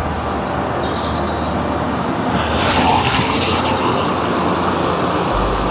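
A vehicle passing through floodwater running across a lane, its tyres throwing up a hissing spray that swells and peaks about halfway through.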